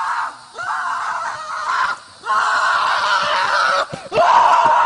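A series of loud screams, each a second or so long and starting on a rising pitch, with short breaks between them.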